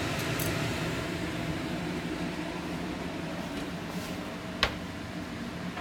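Steady fan-like hum with a few faint ticks and one sharp click near the end as a wooden kitchen drawer of utensils is handled.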